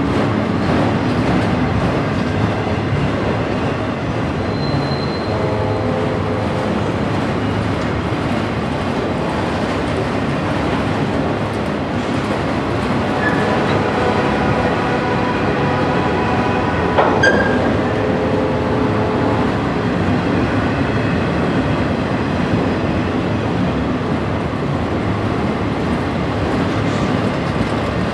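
A freight train's autorack cars rolling past: a steady rumble of steel wheels on rail with some clicking over the rail joints. Wheels squeal in ringing tones a few times, longest from about 13 to 19 seconds in, and there is one sharp clank at about 17 seconds.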